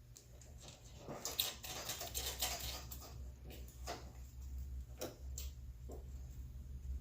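Small metal hardware being handled: scattered clicks and a short rattling scrape about one to three seconds in, as nuts and bolts are fitted by hand to a plastic door handle inside a car door.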